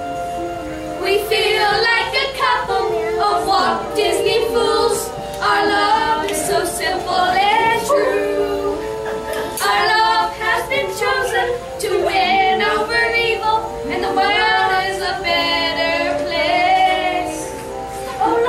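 Young stage performers, a girl and a boy, singing a song over sustained instrumental accompaniment. The voices come in about a second in, phrase by phrase.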